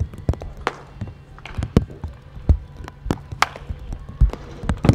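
Baseball practice: a run of irregular sharp cracks and smacks, some ringing briefly, from balls being hit and caught, over a steady low hum.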